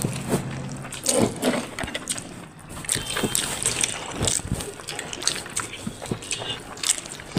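Wet eating sounds of rice with dal and curry eaten by hand: irregular small squelches, smacks and clicks.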